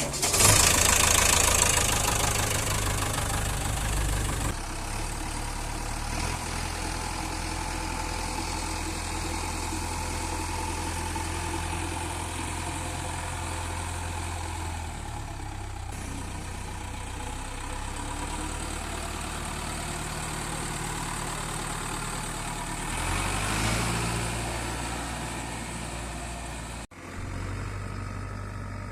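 Heavy diesel engine running steadily, louder in the first few seconds and again briefly about three-quarters of the way through, with a sudden break near the end.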